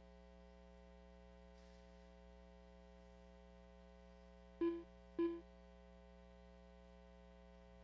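Two short electronic beeps, about half a second apart, a little under five seconds in: the beep an RC race timing system gives when a car's transponder crosses the lap-counting loop. Under them runs a steady electrical hum with many tones.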